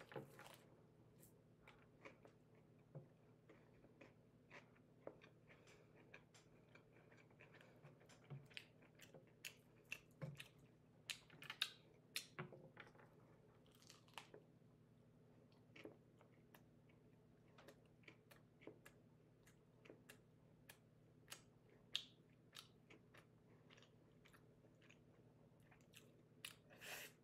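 A person biting into and chewing a lettuce-and-cucumber sandwich, faint throughout: scattered short soft clicks of bites and mouth noises, busiest about ten to thirteen seconds in.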